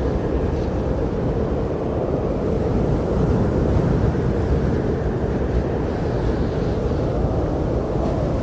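Snowstorm wind blowing in a steady, deep rush, swelling a little about halfway through.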